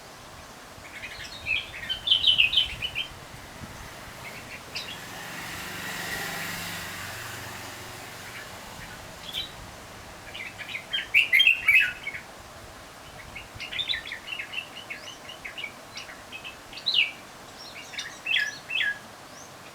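Bulbuls chirping in quick bursts of short, bright notes, in four bouts with pauses between. Around the middle a broad rush of noise swells and fades.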